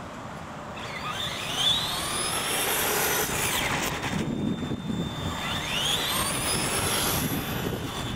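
Electric R/C monster trucks' motors whining as the trucks accelerate, with the pitch rising twice, over tyre noise on concrete.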